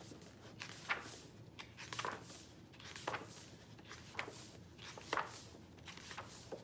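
Pages of a hardcover book being leafed through: a series of short papery swishes and rustles, roughly one a second.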